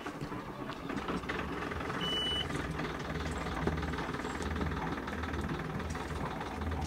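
Sailboat's inboard auxiliary engine running at idle after being started for raising the anchor, with a short high beep from the engine control panel about two seconds in.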